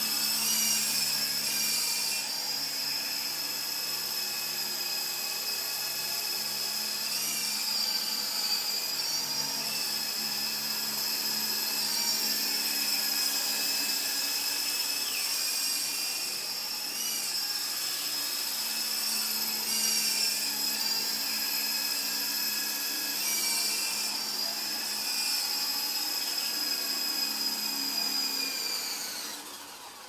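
Small electric motors and rotor blades of a 9053 remote-control helicopter running in flight: a steady high whine that wavers in pitch every few seconds as the throttle changes, winding down near the end.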